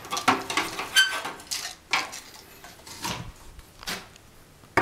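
Plastic base of an ABB Mistral 41F flush-mount distribution board being handled against the brick wall niche: a string of irregular clatters, knocks and scrapes, the sharpest about a second in with a short ring.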